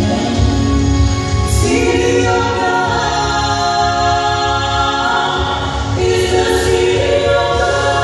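A mixed vocal trio of two women and a man singing a gospel song in harmony through microphones, with long held notes.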